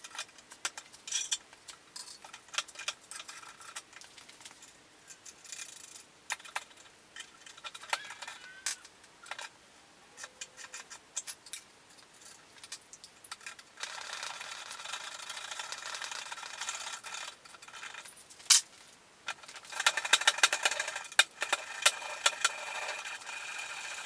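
Steel brackets, bolts and a galvanized trailer-jack tube clinking, clicking and rattling as they are fitted and bolted onto a drill press column. Scattered sharp clicks and knocks at first; about halfway through a steady hiss sets in with dense rapid clicking, busiest a little before the end.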